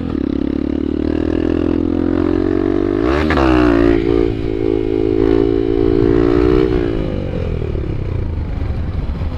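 Honda Bros 150 single-cylinder four-stroke engine revving as the motorcycle rides a wheelie: engine speed jumps about three seconds in, holds high, then drops back around seven seconds.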